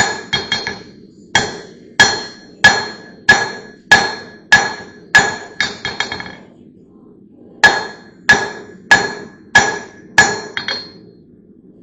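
Hand hammer striking steel, each blow ringing briefly, at about one to two blows a second. There are two runs of blows with a pause of about a second just past the middle, and a few lighter, quicker taps in between.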